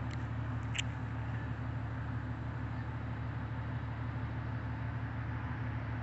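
Fire trucks idling at the scene: a steady low engine rumble, with a brief high chirp just under a second in.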